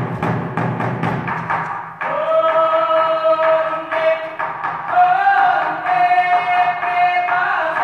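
Choir performance: quick rhythmic percussion beats for the first two seconds, then the choir comes in on a long held chord that steps up in pitch about five seconds in.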